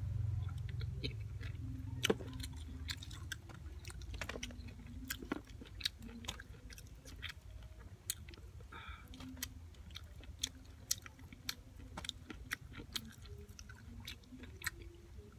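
A person chewing raw calamondins (tắc) by mouth: wet clicks and small crunches at an uneven pace.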